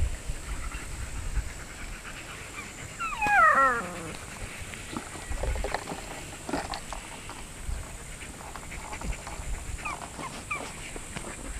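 Samoyed puppies play-fighting with an adult American Akita: a loud, wavering, falling puppy whine about three seconds in, then a couple of short high yips near the end, with scuffling throughout.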